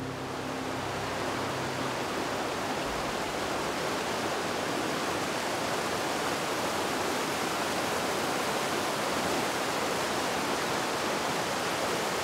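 A fast mountain river rushing over boulders: a steady, even wash of whitewater.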